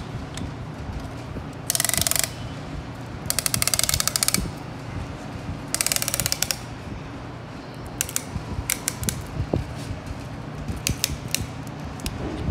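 Ratchet clicking as a piston ring compressor is tightened around a piston: three quick runs of rapid clicks in the first seven seconds, then scattered single clicks.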